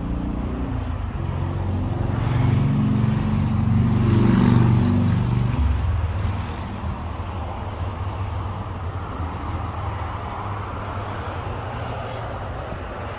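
A motor vehicle engine rumbling past, swelling in the first half then easing to a steady low traffic rumble.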